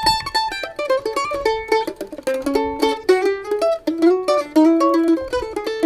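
Bulas F-style mandolin played with a pick: a quick melodic run of picked single notes, each struck sharply and ringing briefly.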